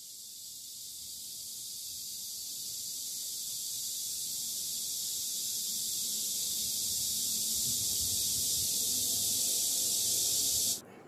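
Dense, steady chorus of cicadas buzzing in trees, high-pitched and growing steadily louder, then cutting off abruptly near the end.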